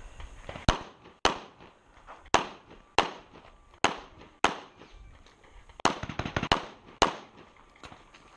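Gunshots in a timed practical-shooting stage: about nine sharp shots at uneven intervals of half a second to over a second, some in quick pairs, as the shooter moves between targets.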